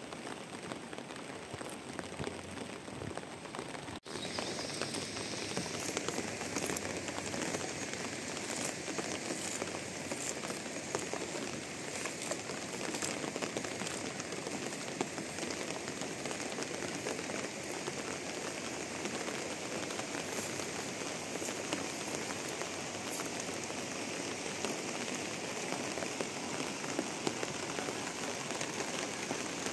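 Steady rain pattering, a dense hiss full of small drop clicks. It cuts out for an instant about four seconds in, then returns louder and denser.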